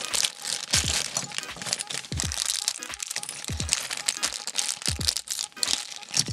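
Clear plastic bag crinkling as it is handled and opened, with small plastic LEGO pieces clicking as they tip out onto the table. Background music with deep, falling bass hits about every second and a half runs underneath.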